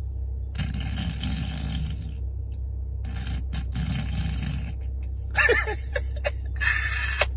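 A person snoring: two long, fluttering snoring breaths about two and a half seconds apart, then shorter, more voice-like snoring sounds near the end.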